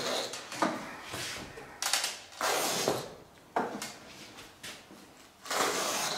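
Pool table baize being sliced with a knife and pulled back off the slate: a run of short tearing strokes, about one a second.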